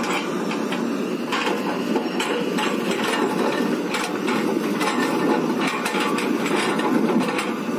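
Kobelco crawler excavator running steadily while it works a grapple rake through wood debris, with scattered knocks and clanks from the attachment.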